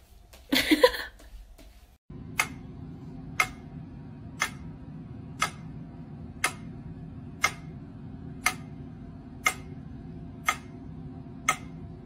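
A brief loud cry about half a second in. Then, over a steady low hum, ten sharp ticks at an even pace of about one a second.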